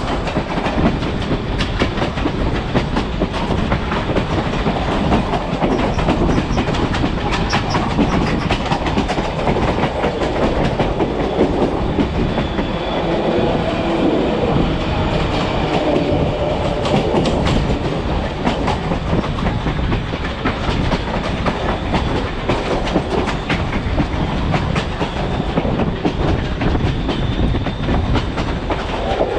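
Railroad passenger car rolling along at speed, heard from beside the car: a steady rumble of steel wheels on the rails with clicks and clacks over the rail joints.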